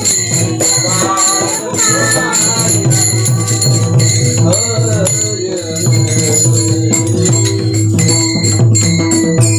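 Marathi kirtan devotional music: a voice singing a bhajan line over a steady drone, with metal hand cymbals (taal) clashing in a steady rhythm.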